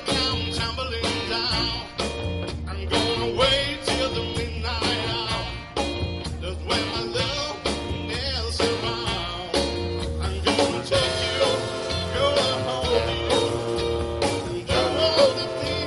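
Live band music: a saxophone section, drum kit and a singer performing a song, with sustained horn chords in the second half.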